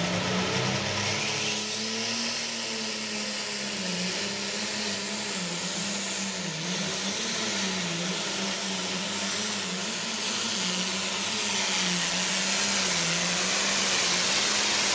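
Turbo-diesel pulling tractor at full throttle hauling a weight-transfer sled down the track. The engine pitch sags and recovers over and over as it fights the load, and a high rushing hiss over it grows louder as it comes close near the end.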